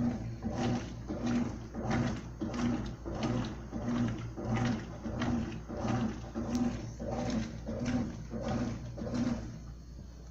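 Consul CWL16A 16 kg washing machine agitating: the motor hums in even, rhythmic strokes about one and a half times a second as the agitator turns back and forth. It stops shortly before the end.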